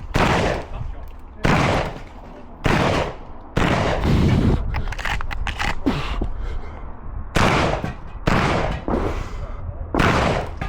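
Benelli M2 SP semi-automatic shotgun firing shots about a second apart, with a pause of about three seconds in the middle. Light clicks during the pause are shells being loaded into the tube.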